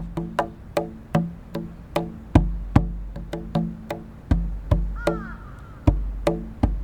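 Tombak, the Persian goblet drum, played in a steady rhythm of about two and a half strokes a second, sharp ringing rim strokes mixed with deep bass strokes. A crow caws briefly about five seconds in.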